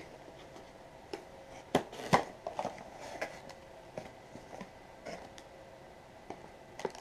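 Cardboard box flaps and the packed contents inside being handled as the box is opened: a scattering of soft knocks and rustles, the loudest about two seconds in.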